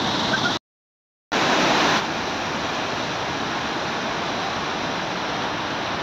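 Steady rushing roar of a waterfall and the rapids below it, running high with muddy floodwater. The sound cuts out to silence for under a second about half a second in, comes back slightly louder, then settles to an even rush.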